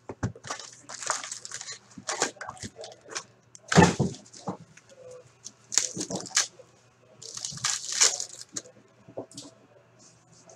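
Hands opening a 2017-18 Upper Deck Ice hockey card box and tearing open a foil pack: irregular crinkling, rustling and small clicks of wrapper and cards being handled, with a louder crackle about four seconds in.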